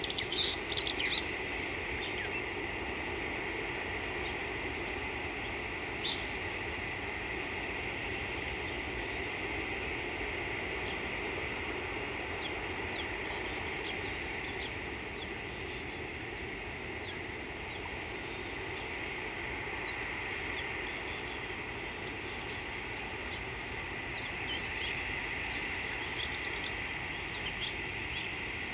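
Steady insect chorus holding two unbroken high-pitched bands, with scattered short bird chirps: a cluster right at the start, one about six seconds in, and more in the middle and near the end.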